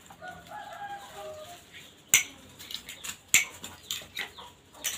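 A rooster crowing once in the background, a single call lasting a little over a second. Then several sharp clacks follow, the loudest about two seconds in.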